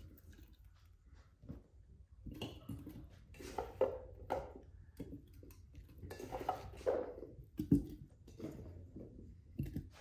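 Irregular clinks and knocks of dishes and utensils being handled.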